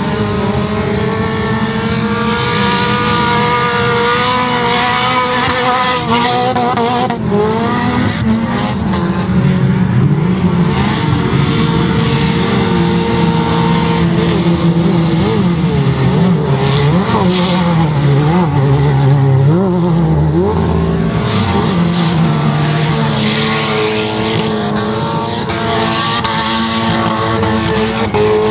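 Racing car engines running hard, the pitch rising and falling over and over as the drivers accelerate, lift and shift through the corners of a dirt track.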